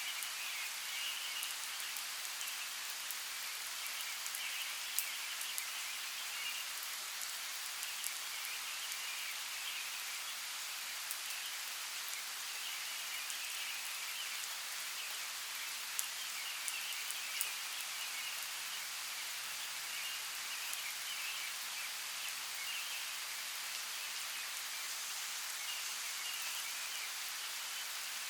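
Light rain falling on forest leaves: a steady soft patter with occasional sharper drips. A high, patchy chorus of calls comes and goes in the background.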